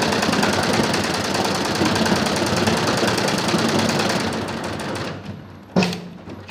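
Computerized multi-needle embroidery machine stitching at speed, a fast, even clatter that dies away about four and a half seconds in. A single sharp clack follows near the end.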